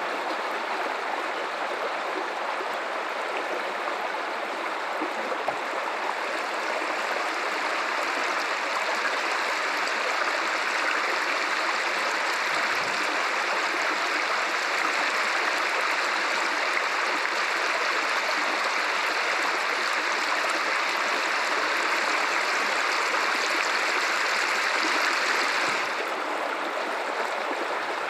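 Guadalupe River water running in a steady rushing stream. It grows a little louder a few seconds in and drops back suddenly shortly before the end.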